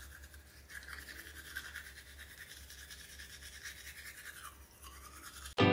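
Toothbrush scrubbing teeth in an open mouth: a steady brushing noise whose tone shifts as the mouth changes shape. Loud piano music cuts in near the end.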